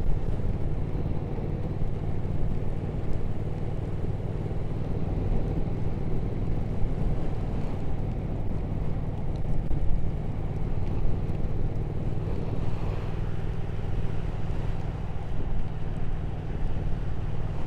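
Triumph Speed Twin 1200 parallel-twin engine running at a steady cruise, with a haze of wind and road noise over it.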